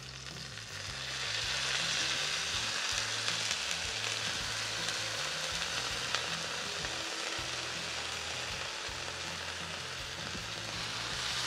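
Birria tacos sizzling on a hot flat-top griddle as consommé is ladled over them; the sizzle swells over the first couple of seconds and then holds steady.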